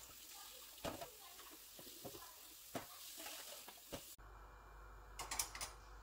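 Faint clinks and knocks of dishes being washed in a stainless-steel kitchen sink, a few sharp ones spread through, over a low hiss that drops away about four seconds in.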